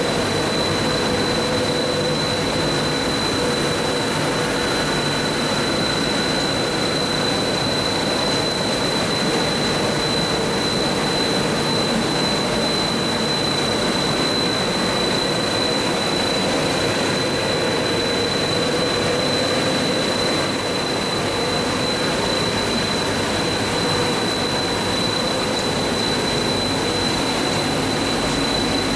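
Plastic extrusion production line running steadily: an even machine hiss with a constant high-pitched whine and a fainter lower hum.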